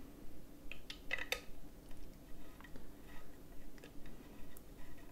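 Light plastic clicks and taps from fingers fitting the volume knob back onto a Blue Yeti microphone's body: a small cluster of clicks about a second in, then a few scattered faint ticks.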